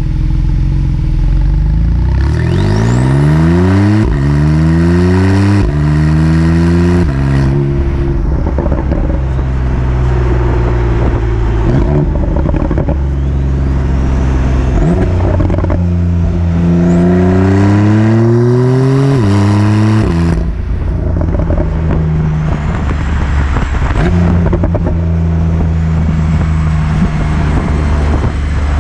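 Porsche 911 Carrera 4S (991.2) twin-turbo flat-six with sport exhaust accelerating through the PDK gears: the engine note rises and drops at three quick upshifts a few seconds in, holds steady, then climbs through another gear and settles into a steady drone. A faint high turbo whistle rises over the engine during the pulls.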